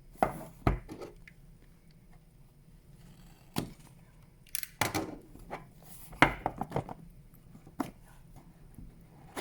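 Smartphone retail box and packaging being handled and opened: a series of sharp knocks and taps on cardboard and plastic, with short rustles in between.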